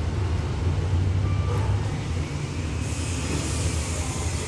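Diesel train pulling away, hauled by the Hitachi 4501 diesel-electric locomotive. Its engine is a steady low rumble that eases slightly after about two seconds as the train draws off.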